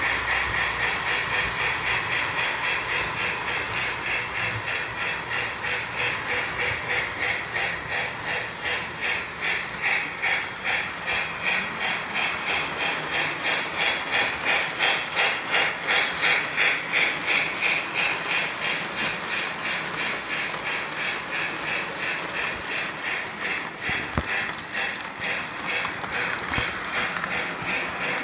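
Three-rail O gauge model trains running on track: a mechanical whir with a steady rhythmic clatter of a few beats a second, growing louder toward the middle and easing off afterwards.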